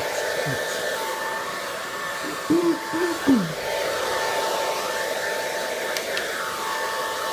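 Handheld hair dryer running steadily on a wet dog's coat: a rush of air with a steady motor whine. A few short voice-like sounds come in about two and a half to three and a half seconds in.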